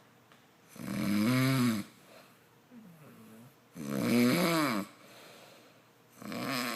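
A chicken snoring: long, wavering snore-like calls, each rising and then falling in pitch, coming about every three seconds. There are three loud ones, with a fainter one between the first two.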